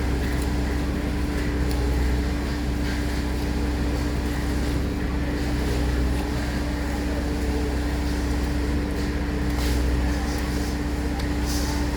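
Heavy diesel engine running steadily at constant speed, a low rumble with a held droning pitch, as from the machinery feeding the concrete pour.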